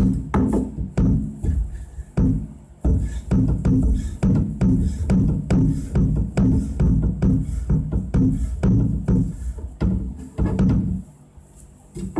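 Kitchen knife chopping through oil-drained aburaage (fried tofu) onto a cutting board: a steady run of knocks, a few a second, with a short pause near the end.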